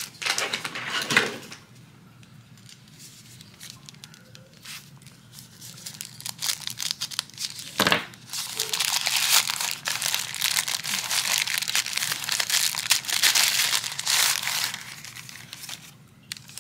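Paper wrapping being crinkled and torn off a bottle: a short burst of crinkling, a quieter spell, a single sharp click about eight seconds in, then a long stretch of loud crinkling and tearing that dies away near the end.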